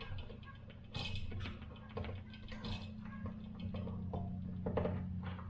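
Scattered small clicks and taps of hands handling electrical wires and a light switch while wiring it up, over a steady low hum.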